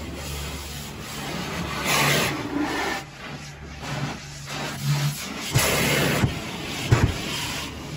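Car-wash pressure wand spraying water against a car's windows and body, a hissing rush over a steady low hum. The spray comes in louder gushes about two seconds in and again about six seconds in, with a couple of sharp knocks near the end.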